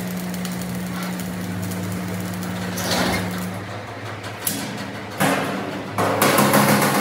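Arc welding on a steel fuel tank seam: a steady electrical hum with a crackling hiss that stops about three and a half seconds in. Sharp metal knocks follow, louder near the end, from a chipping hammer on the weld.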